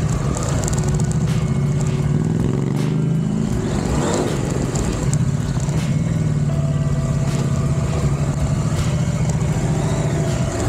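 Honda CRF1000L Africa Twin's parallel-twin engine running steadily at low speed, with a low rumble underneath. The pitch dips and rises briefly about four seconds in as the throttle changes.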